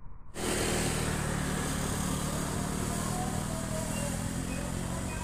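Steady outdoor background noise, a low drone with a high hiss above it, cutting in abruptly about a third of a second in.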